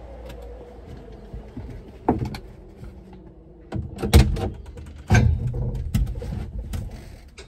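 Several sharp clunks and knocks inside a car's cabin over a low steady rumble, which fades near the end.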